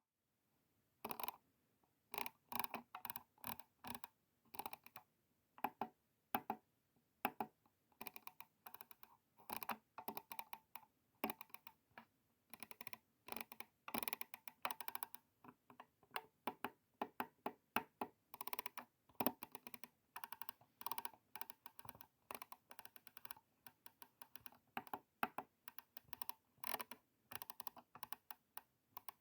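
Computer mouse buttons clicking over and over, in quick irregular runs of sharp clicks with short pauses between.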